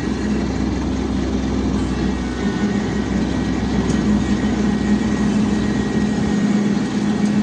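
Tractor engine running steadily under load while pulling a rotary cutter (bush hog), a constant low drone; the deepest hum drops away a little near the end.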